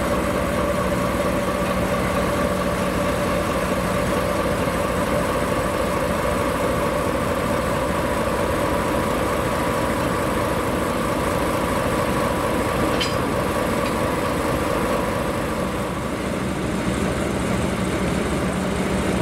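JR Freight DE10 diesel-hydraulic locomotive's diesel engine running steadily as the locomotive moves slowly past, a level drone with a single sharp click about thirteen seconds in. Near the end the higher tones of the engine drop away, leaving the lower drone.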